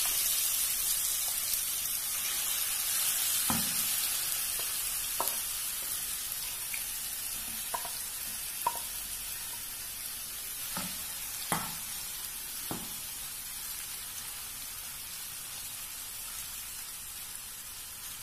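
Marinated prawns sizzling as they shallow-fry in oil in a non-stick frying pan, a steady hiss that slowly dies down. Now and then the clicks and knocks of a wooden spatula as the prawns are scraped in and stirred.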